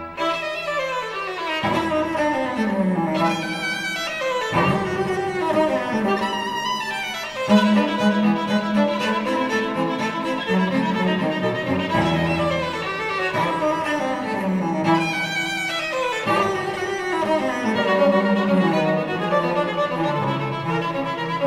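Background music played on bowed strings led by a violin, with repeated falling runs every few seconds.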